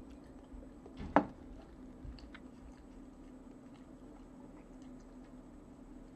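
A ceramic mug set down on a wooden table with one sharp knock about a second in, followed by a few faint small clicks over a low steady hum.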